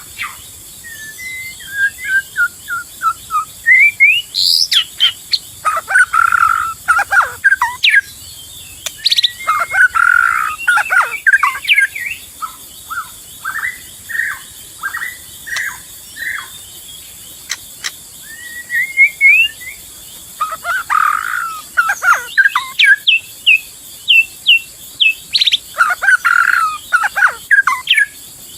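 White-rumped shama singing a loud, varied song of whistled phrases, some rising and some falling, in bursts with short pauses between them.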